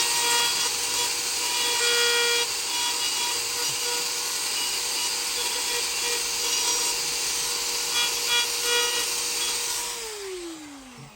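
An electric power tool running at full speed on wood, a steady high motor whine under a hiss of cutting. About ten seconds in it is switched off and the whine falls away as the motor winds down.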